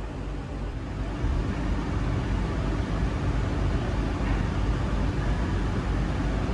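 Sightseeing cruise boat under way: its engine runs steadily under a rush of wind and water, getting louder a little over a second in.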